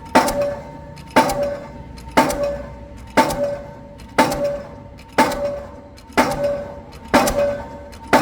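Delmag D46-32 diesel pile hammer driving a 450 mm PHC concrete pile: a sharp clanging blow about once a second, each followed by a brief metallic ring.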